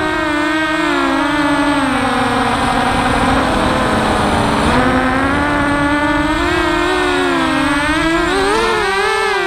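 XHover MXP230 FPV racing quadcopter's brushless motors and propellers whining, the pitch rising and falling as the throttle changes, with a quicker rise and wobble near the end.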